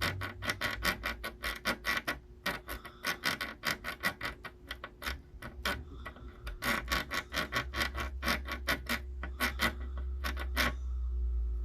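Rapid, irregular clicking and ticking of a small hand tool working on a PS5 circuit board while the board and replacement HDMI port are prepped for soldering, over a steady low hum. The clicking pauses briefly near the middle and stops shortly before the end.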